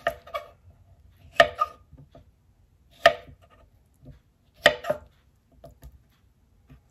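Kitchen knife cutting ripe papaya into cubes on a wooden cutting board: a sharp knock of the blade on the board about every second and a half, with softer taps in between.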